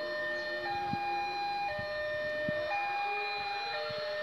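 Railway level-crossing warning alarm sounding, signalling an approaching train: an electronic two-tone signal that switches between a higher and a lower pitch about once a second, with a second, lower pair of tones changing out of step with it.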